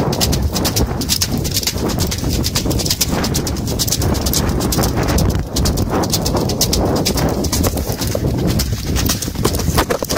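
A horse galloping over a wet shingle-and-shell beach: a fast, continuous run of hoofbeats crunching on the stones, heard from the saddle.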